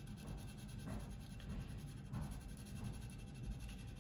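Thin sanding stick rubbing slowly over filler on a plastic model kit's fuselage: a few faint, light scratching strokes as the filler is smoothed down.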